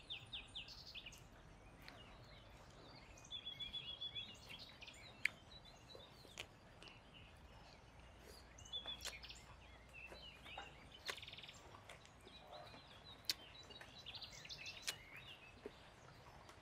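Faint birds chirping in short calls and quick trills, with a few sharp clicks standing out above them.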